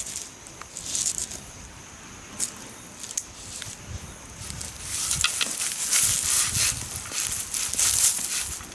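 Rustling and crunching, with a few sharp clicks, louder in the second half.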